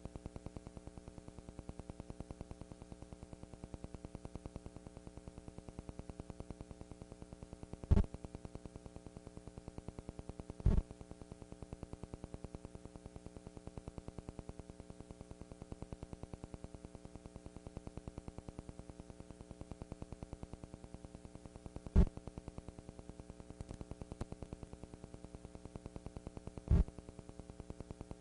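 Steady electrical hum and buzz with a fast, even flutter, with no band music audible. Four sharp pops break through: two close together about a third of the way in, and two more in the second half.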